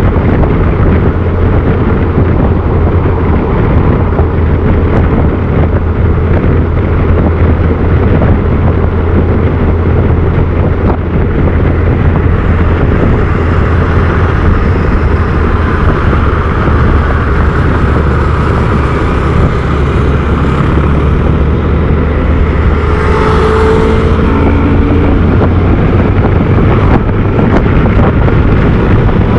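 Heavy wind buffeting on the microphone over the steady hum of a Honda CBF1000's inline-four engine at highway cruising speed. A brief pitched sound passes about two-thirds of the way through.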